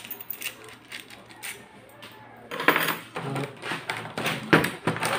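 Small metallic clicks and rattles of a doorknob lockset being handled, with plastic packaging crinkling; the handling gets busier and louder about halfway through.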